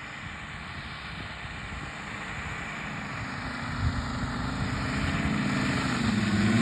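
UMS 150cc radial engines of a giant RC DHC-4 Caribou running, their low note growing steadily louder from about three seconds in as the plane comes in low over the field.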